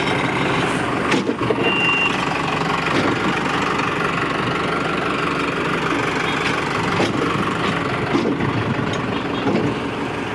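Powertrac tractor's diesel engine idling steadily, with a few short knocks.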